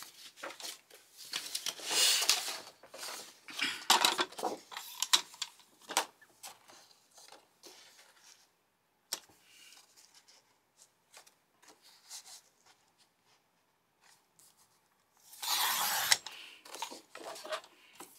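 Paper being handled and pressed during craft work: intermittent rustling and scraping of cardstock with small taps and clicks, and one louder rustle lasting about a second near the end.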